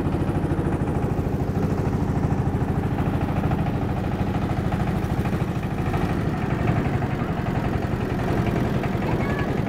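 Engine of a wooden motorised river boat running steadily under way: an even, fast chugging over a low hum.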